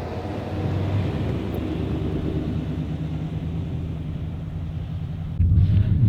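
Motor vehicle running with a steady low rumble, which turns abruptly louder about five and a half seconds in.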